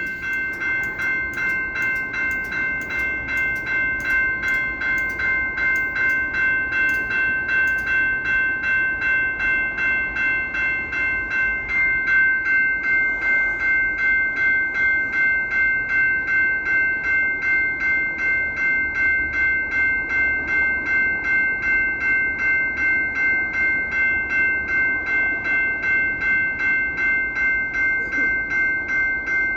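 Railroad grade-crossing bell ringing steadily at about two strokes a second, over the low rumble of a passing train.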